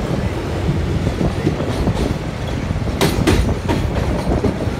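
Train running along the track, heard from aboard: a steady rumble of wheels on the rails, with a few sharp clacks over rail joints, the loudest about three seconds in.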